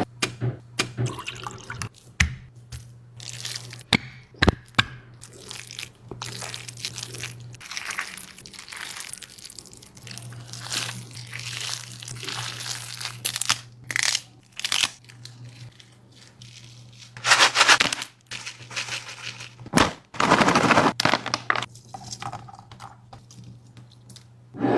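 Kitchen food preparation: water dripping and splashing with irregular clicks and knocks of handling, over a faint steady hum.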